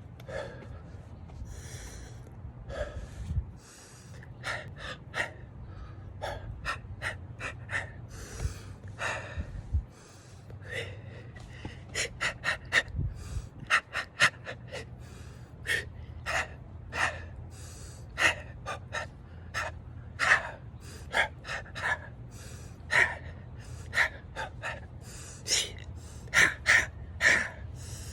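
A person breathing in short, sharp breaths and gasps, one after another, spaced out at first and coming faster and louder in the second half. A steady low hum runs underneath.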